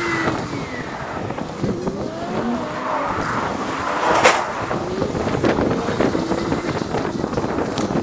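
Sped-up street traffic heard from a moving electric scooter: steady road and wind noise with vehicle sounds whose pitch slides up and down, and a brief loud hiss about four seconds in.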